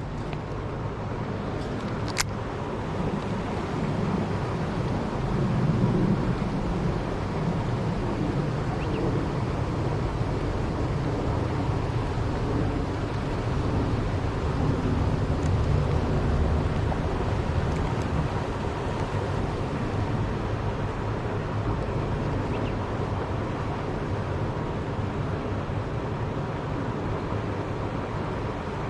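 Steady low outdoor rumble with a faint hum, swelling slightly around six and sixteen seconds in, and a single sharp click about two seconds in.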